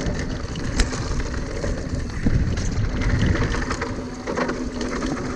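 Mountain bike descending a loose dirt trail: steady rush of wind on the microphone with tyre and frame rattle. There is a sharp knock just under a second in.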